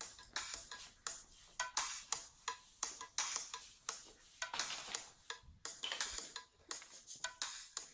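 A thin percussive beat of crisp, ticking hits, two or three a second, with little bass underneath.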